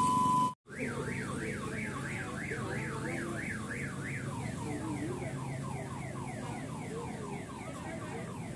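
An electronic two-tone beep cuts off about half a second in. After a brief gap, an electronic siren-like warble sweeps up and down about three to four times a second, changing partway through to quick repeated downward sweeps, over a low background hum.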